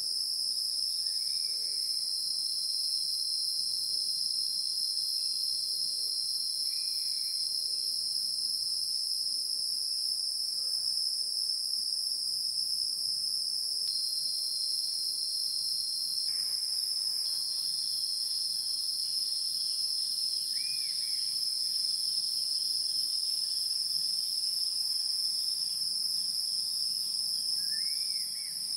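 Insects droning steadily at a high pitch without a break, with a few short chirps over them.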